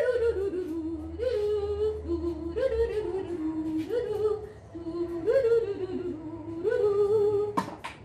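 A voice humming a wordless little tune for the puppet, in short phrases that scoop up and slide down, about one every second and a half. A single sharp knock comes near the end.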